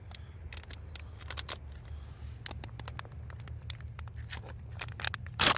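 Plastic ration-pack food packet crinkling and clicking as it is handled, with a short, loud rip near the end as it is torn open.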